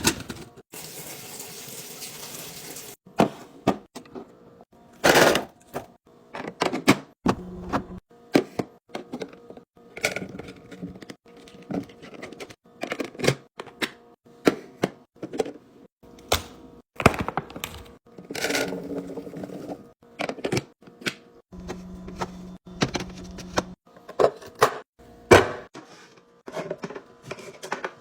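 Food packages and containers being handled and set down while a fridge is restocked: many irregular sharp clicks, taps and knocks, with a few short rustling or sliding stretches between them.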